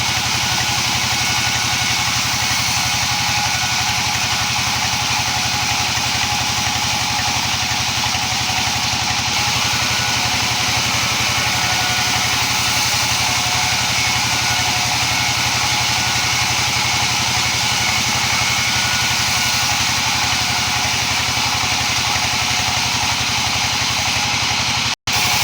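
Engine-driven wood-slicing machine running steadily at an even speed. The sound cuts out for a split second near the end.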